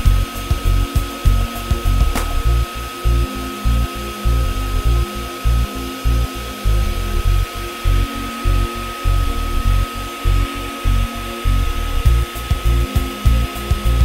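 ReVair reverse (suction) hair dryer running steadily as it dries a section of hair, with a constant high whine. Background music with a steady bass beat plays along with it.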